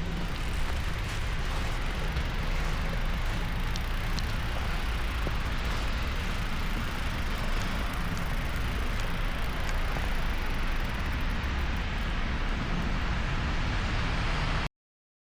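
Steady rush of wind buffeting the action camera's microphone, with tyre noise from a bicycle riding through snow and a few faint ticks. It cuts off suddenly near the end.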